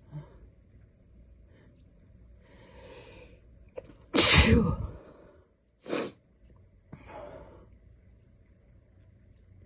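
A person with a heavy head cold sneezing: a drawn-in breath, then one loud sneeze about four seconds in, followed a second later by a shorter sharp burst and a softer breath out.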